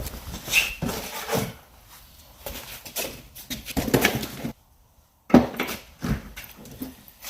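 Irregular knocks and clatter of objects being handled, with a sudden short break in the sound about halfway through.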